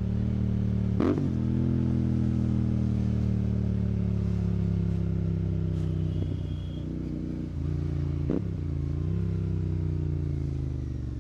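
Royal Enfield Continental GT 650's parallel-twin engine running through a Red Rooster aftermarket exhaust, its note slowly falling as the revs drop. It rises briefly about nine seconds in, and a few sharp clicks come through.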